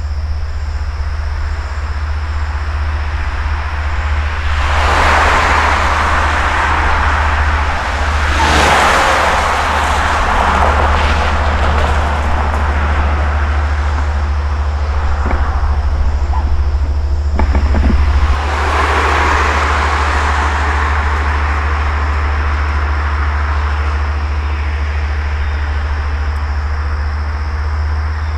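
Long Island Rail Road train led by a DM30AC dual-mode diesel locomotive, at the station: a steady low rumble with long swells of hissing noise about five, nine and nineteen seconds in, and a few knocks near eighteen seconds.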